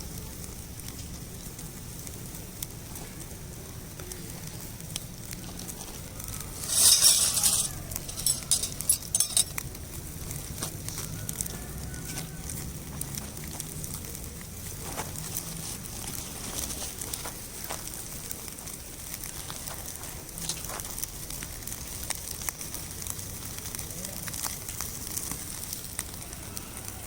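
Firewood crackling in a fire-pit stand, with scattered pops throughout. About seven seconds in comes a louder burst of hissing and crackling, followed by a quick run of pops.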